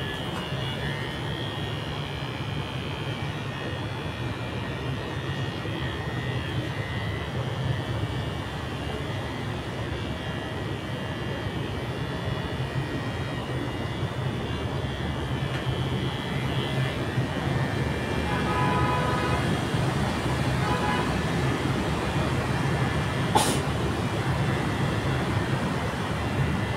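Electric hair clippers buzzing steadily as they cut short hair, with one sharp click near the end.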